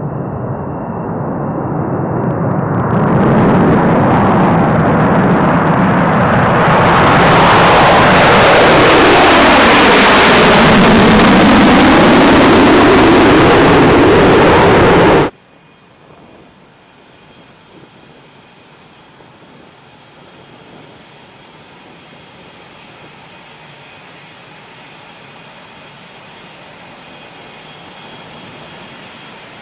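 B-1B Lancer bomber taking off on afterburner: the jet roar builds over the first few seconds and stays at full strength while the aircraft climbs away, with a sweep in pitch that dips and rises through it. About halfway through it cuts off abruptly to a much quieter, steady jet hum with a faint high whine from an F/A-18 Hornet's engines running on the ramp.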